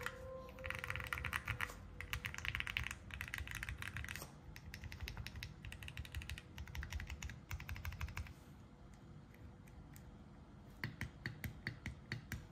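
Custom Wuque Studio Mammoth 20 mechanical numpad being typed on, likely fitted with Akko CS Jelly Pink linear switches: quick runs of key presses under several fingers, in bursts. After about eight seconds it thins to a few separate keystrokes.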